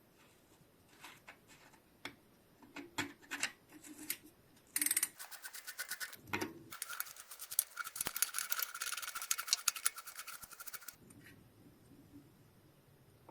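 Bicycle freehub ratcheting: a fast, even run of pawl clicks as the hub freewheels, from about five seconds in until about eleven seconds. A few scattered clicks and knocks come before it.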